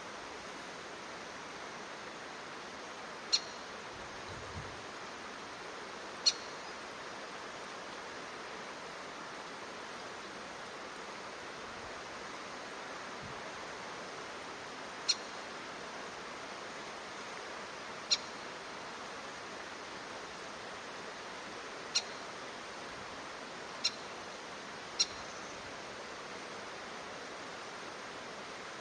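A bird giving single short, sharp, high-pitched call notes, seven in all at irregular intervals, over a steady hiss.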